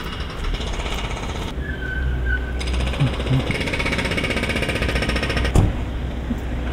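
Jackhammer breaking up the road at roadworks, a fast, even rattle of strokes that is loudest in the middle, over a low steady rumble. A short high squeal comes about two seconds in, and a sharp knock near the end.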